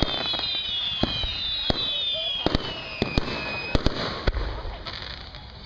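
Fireworks going off, with sharp reports and crackle scattered throughout. A car alarm set off by the fireworks sounds a run of repeated falling tones over the first few seconds, then stops about three and a half seconds in.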